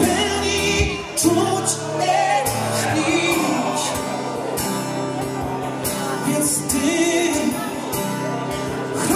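A man singing a slow song with a wavering voice while strumming chords on an acoustic guitar, played live through a microphone.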